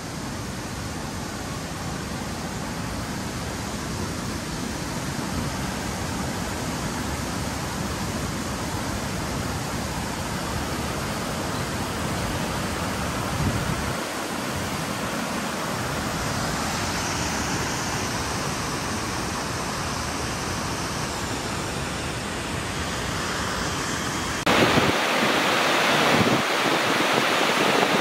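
Steady rushing noise with no tones in it. About three quarters of the way through it cuts abruptly to a louder, hissier rush of water, like a waterfall or mountain stream.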